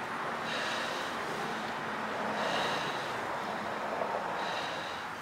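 A person breathing hard after heavy exertion, three breaths about two seconds apart, over a steady background hiss.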